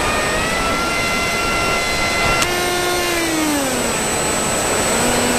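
Brushless motor of a pusher-prop FPV wing running with a steady whine under heavy wind noise, then a sharp bang about two and a half seconds in as a motor-mount bolt that has dropped out strikes the propeller and breaks half of it off. After the bang the motor's sound changes, with a tone that falls in pitch and settles lower.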